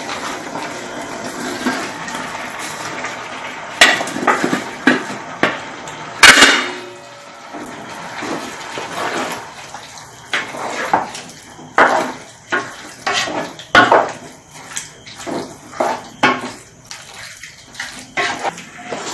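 Chunks of cooked tapioca dropped into a pot of simmering curry, with a few knocks, over a steady bubbling hiss. From about halfway on, a ladle scrapes and clacks against the pot in quick, uneven strokes as the tapioca is stirred into the curry.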